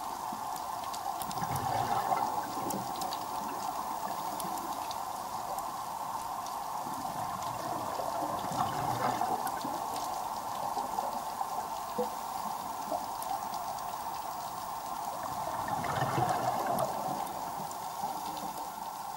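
A scuba diver's regulator heard underwater: a rumbling burst of exhaled bubbles about every seven seconds, three times, over a steady hiss, with faint scattered clicks.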